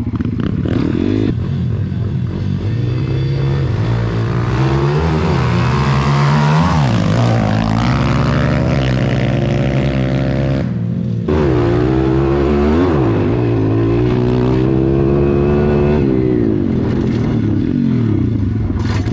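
Small pit bike engines, an SSR 140 big wheel and an SSR 150, racing on the track, revving up and down again and again as they accelerate, shift and back off for corners. About halfway through the higher part of the engine sound drops away for a moment, then comes back a little louder.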